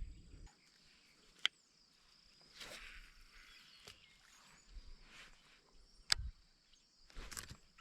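Quiet outdoor ambience with a faint, steady high-pitched insect trill. A few soft rustles and two sharp clicks come through, one about a second and a half in and a louder one around six seconds.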